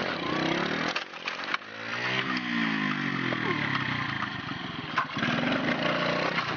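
Small motorcycle engine revving up and down in uneven swells, with a few sharp knocks about a second in.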